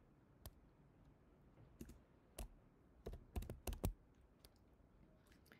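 Faint computer keyboard keystrokes: scattered single taps, with a quick run of several about three to four seconds in, as code is typed.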